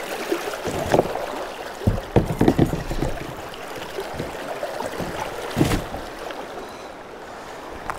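Fast-running stream water rushing beside a kayak, with a few sharp splashes and knocks as a large Alabama bass thrashes in the water at the side of the hull: one about a second in, a cluster around two seconds, and another past five seconds.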